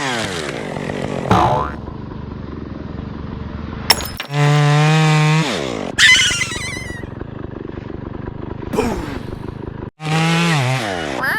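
A string of silly cartoon-style sound effects. There are several falling pitch slides, a sharp click about four seconds in, a held tone that drops away, and a wavering, wobbling tone.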